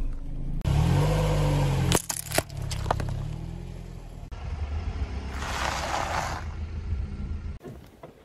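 Car engine running low and slow as a tyre rolls over and crushes a plastic drink bottle on asphalt, with sharp cracks and a short hiss of liquid spraying out. The sound cuts off suddenly near the end.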